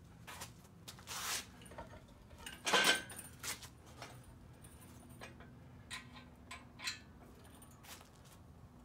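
Scattered metal clinks and rattles from hand work on an engine slung from a chain hoist, with a louder clatter about a second in and the loudest one near three seconds.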